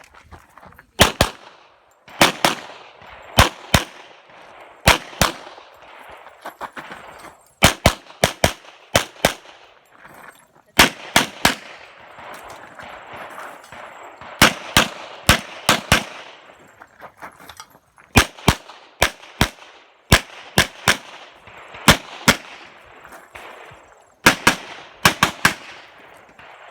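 Competition semi-automatic handgun firing a timed stage course: many shots, mostly in quick pairs a fraction of a second apart, with brief pauses between strings as the shooter moves and changes targets. Each shot rings out briefly after the crack.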